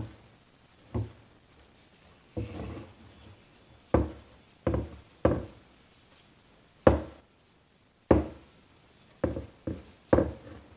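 Strokes of 00 steel wool scrubbing a freshly cold-blued shotgun barrel, with the barrel knocking on the bench. The strokes are short, sudden scrapes and knocks, about one a second, lightly polishing the blotchy bluing to even it out.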